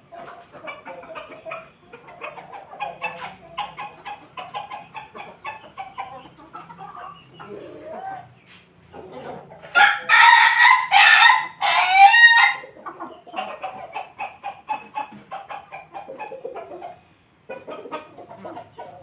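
Chickens clucking softly, then about ten seconds in a rooster crows once, loudly, for about three seconds in a few broken phrases.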